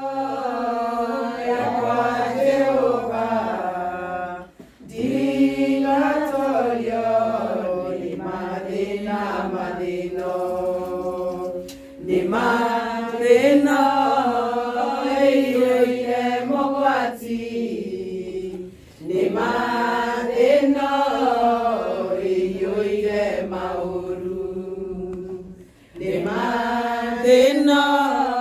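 A small group of women singing together unaccompanied, in long phrases of several seconds with brief pauses for breath between them.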